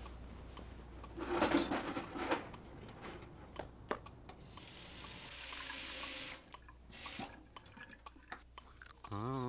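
Scattered light clicks and taps, a brief rustle a little over a second in, and a steady hiss lasting about two seconds in the middle. A man's humming starts right at the end.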